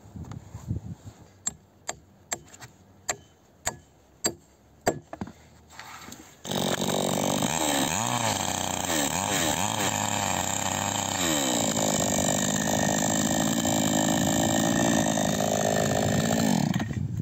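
A run of sharp knocks, roughly two a second, for the first few seconds. Then a chainsaw starts abruptly and cuts through a pine plank, its engine note dipping and recovering as the chain bites into the wood. It stops shortly before the end.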